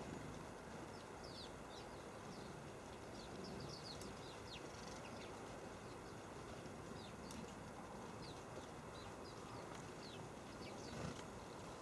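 Small garden birds calling: many short, high chirps scattered through, over a faint steady low background rumble.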